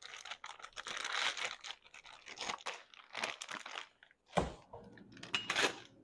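Plastic zip-lock bag crinkling and rustling as it is pressed shut and handled, then a single thump about four and a half seconds in, followed by more rustling.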